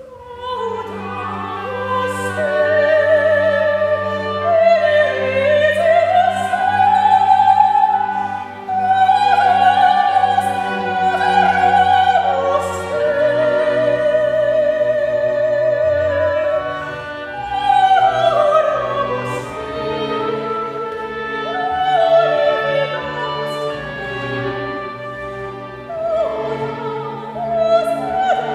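A classical solo voice sings a long, slow line with vibrato over sustained chamber-orchestra strings, part of a sung Mass setting.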